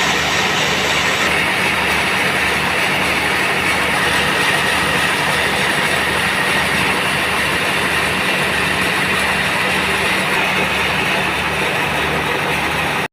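Sawmill band saw running steadily, a continuous machine hum with a hiss of noise over it.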